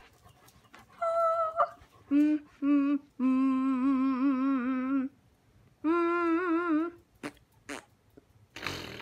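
Someone humming a short run of long notes with a wavering pitch: a brief higher note, two short low ones, a low note held for about two seconds, then a slightly higher note, followed by a few faint clicks.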